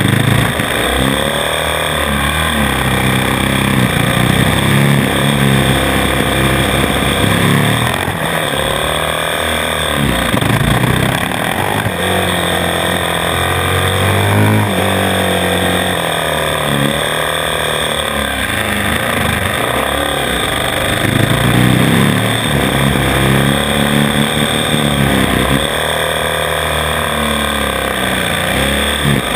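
A 450 cc single-cylinder four-stroke supermoto motorcycle engine at racing speed, heard on board, revving up and dropping back again every few seconds as the throttle is opened and closed through the corners.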